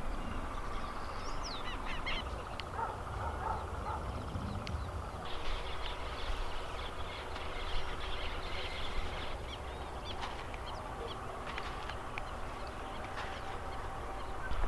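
Birds calling and chirping in the open fields: a few short chirps early, then a busier stretch of calls in the middle, over a low wind rumble on the microphone.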